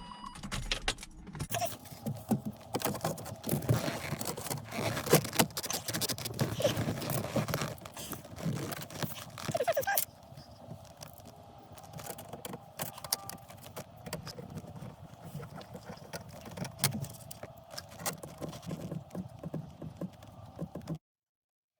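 Handling noise: irregular clicks, light rattles and rustling, busier and louder for the first ten seconds or so, quieter after that, and cutting off suddenly near the end.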